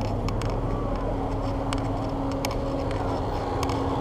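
Idling engines of stopped traffic close alongside a passing bicycle, a steady low rumble. A steady hum comes in a little under two seconds in and holds, with a few light clicks scattered through.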